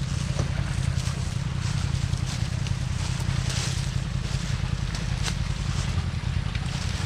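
Off-road vehicle engine running steadily with a low drone, with scattered short clicks over it.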